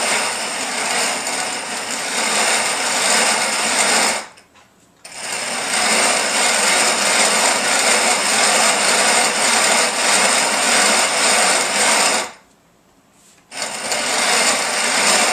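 Hand-cranked Grain Maker grain mill grinding grain into flour: a steady grinding noise that stops briefly twice, about four seconds in and again about twelve seconds in.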